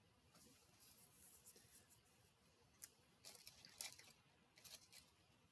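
Near silence, with faint scattered clicks and light scraping from handling metal parts while working on a lawn tractor's electric PTO clutch.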